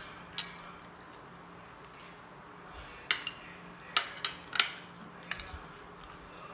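Spoon and fork clinking against a plate while eating, in a handful of separate sharp clinks, most of them bunched together about three to five seconds in. A faint steady low hum runs underneath.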